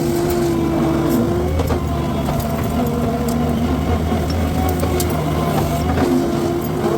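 Skid steer running with a brush cutter attachment: a steady engine and a high whine. The whine drops in pitch about a second and a half in, with a heavier low rumble, and rises again near the end, with a few sharp cracks along the way.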